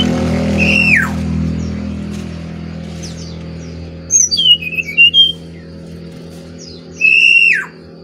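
Brown-chested jungle flycatcher (SRDC, Bali type) singing loud whistled phrases: a short whistle about a second in that slides sharply down, a quick run of warbled notes in the middle, and a held whistle near the end that drops away. A low steady hum sits underneath and fades out.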